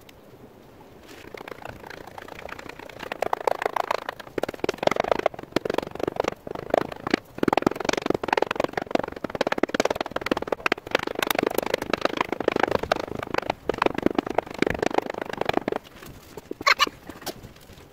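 Rubber mallet ramming molding sand into a wooden casting flask: rapid, repeated blows that stop about two seconds before the end, followed by one short sharp knock.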